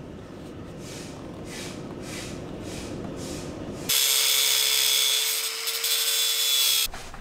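About four seconds in, an angle grinder bites into a metal guide pin on a swivel-seat base, cutting with a loud steady whine for about three seconds before it stops abruptly. The pin is being ground off so the seat turns without scraping.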